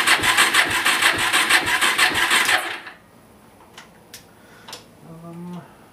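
Suzuki quad's single-cylinder engine being cranked by its electric starter on a very low battery, turning over without firing, then cutting off about three seconds in. A few light clicks and a brief low hum follow near the end.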